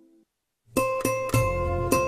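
Background music with plucked strings: one piece fades out into a brief silence, then new music starts abruptly about three-quarters of a second in, with sharp struck notes over held tones.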